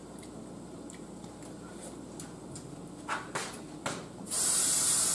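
A few light clicks and knocks at a kitchen sink, then a kitchen faucet turned on about four seconds in, water running hard into the sink, likely to rinse off a tasting spoon.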